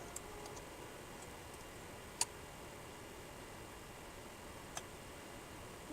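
Quiet room hiss with a few light clicks: one sharp click about two seconds in, a softer one near the end and faint ticks at the start.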